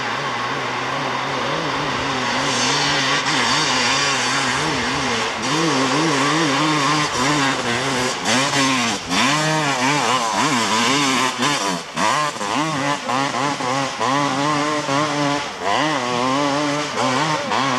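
250cc ATV engine revving hard under load on a steep dirt climb, its pitch surging up and dropping back again and again as the rider works the throttle.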